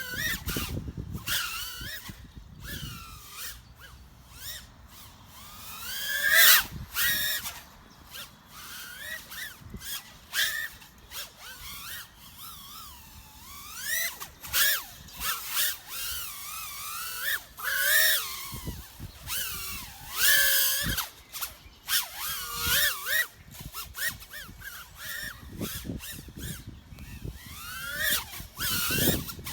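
FPV racing quadcopter's brushless motors whining, the pitch sweeping up and down continually as the throttle is punched and chopped, broken by sudden loud rushes of noise.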